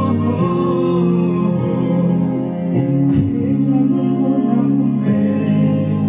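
A man singing into a microphone over amplified instrumental backing music, holding long notes.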